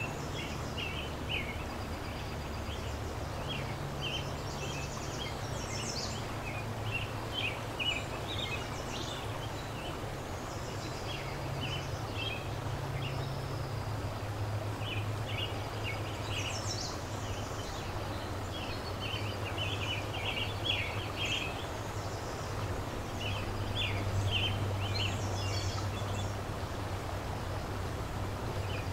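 Steady rushing of a flowing river, with small songbirds chirping and singing on and off above it and a low steady hum underneath.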